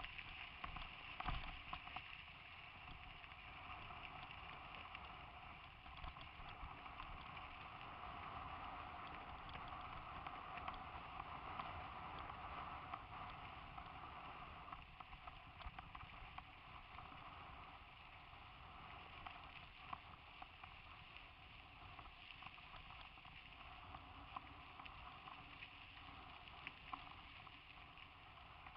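Faint steady rushing of a mountain bike ride on a dusty dirt track, picked up by a helmet-mounted camera, with many small rattling clicks from the bumps.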